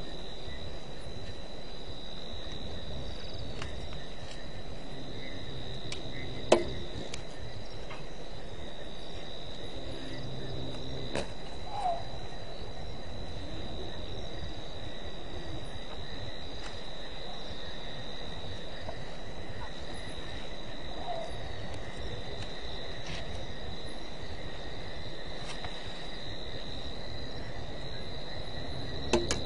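Night insects, crickets, trilling steadily at a high pitch over a low hiss, with a sharp click about six seconds in and another near the end.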